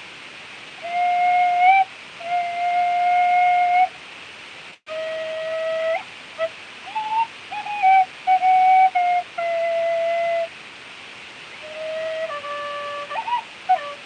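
Clarke Sweettone tin whistle played solo in a slow improvised melody: long held notes that slide up at their ends, a run of short ornamented notes in the middle, and short pauses between phrases. The sound cuts out for an instant about five seconds in.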